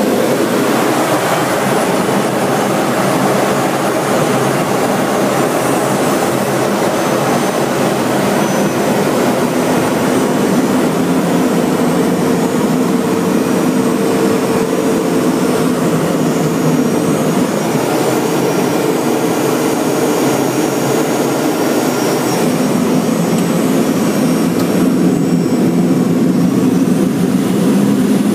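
Boeing T-45 Goshawk jet trainer's Adour turbofan engine running in flight with rushing airflow, heard from inside the aircraft as a steady, loud drone.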